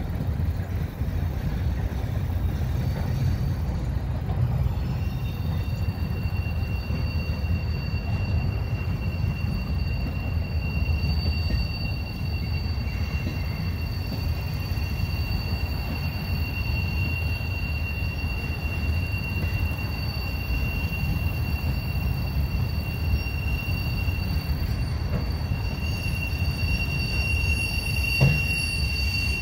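Empty railroad flatcars rolling past with a steady low rumble. About five seconds in, a steady high-pitched wheel squeal sets in and holds, with a single clunk near the end.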